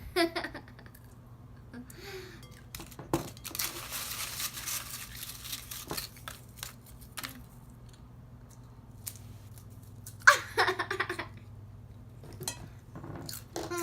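Food being handled with a tearing, crinkling rustle lasting about two seconds a few seconds in, with a few light clicks and knocks, then a short burst of giggling about two-thirds of the way through.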